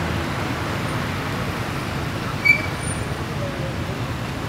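Steady low rumble of fire truck diesel engines and queued road traffic, with one brief high beep about halfway through.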